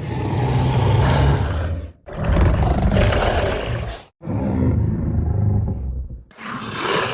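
Monster roar sound effects: about four separate long, rough roars in a row, each about two seconds, with brief silent gaps between them. The third roar is duller than the others.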